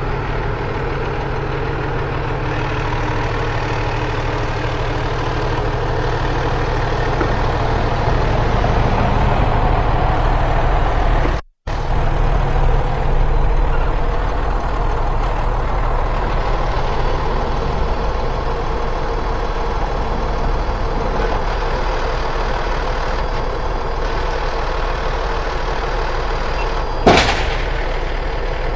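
Fire truck's diesel engine running steadily with an even low hum. The sound cuts out completely for a moment about eleven seconds in, and a single short sharp clack comes near the end.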